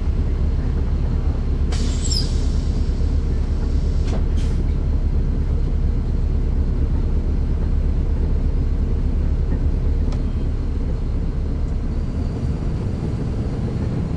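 Caterpillar C13 diesel engine of a 2009 NABI 416.15 transit bus, heard from inside the rear of the cabin, running steadily with a deep drone that eases off slightly about ten seconds in. A brief high squeal comes about two seconds in.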